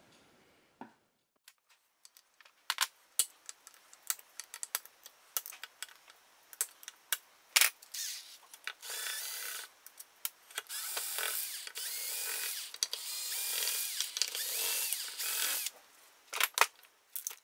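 Compressed-air blow gun hissing in three long blasts, with a faint whistle in the hiss. Before and after the blasts, light clicks and clatter of hand tools being handled on a workbench.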